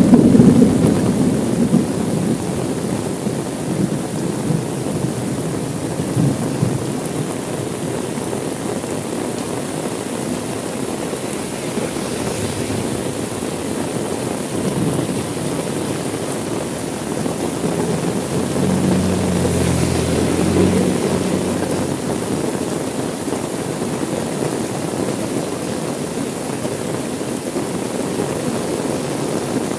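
Heavy rain pattering steadily on a car window, with a loud thunder rumble dying away over the first couple of seconds and a fainter low rumble swelling and fading about 18 to 21 seconds in.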